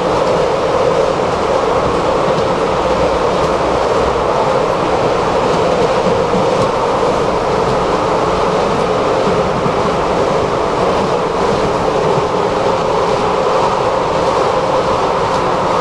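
Tram running at speed, heard from inside the passenger cabin: a steady rolling noise of wheels on rails and the car's running hum, with no stops or squeals.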